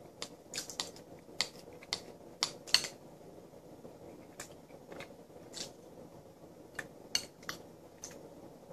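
Spoon clicking and scraping against a bowl as food is scooped out: a dozen or so short, sharp clicks, coming about twice a second in the first three seconds, then more spread out.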